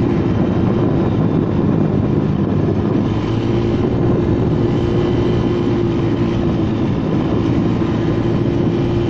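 Honda Vario 110 carburetted scooter's single-cylinder four-stroke engine, bored up to a 55 mm piston (about 130 cc), running hard at a steady pitch while the scooter is ridden at speed, with a heavy rush of wind and road noise on the microphone.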